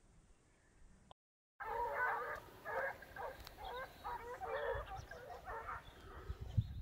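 Swiss hounds (Schweizer Laufhunde) baying, a rapid run of short repeated calls that starts about a second and a half in, after a quiet opening.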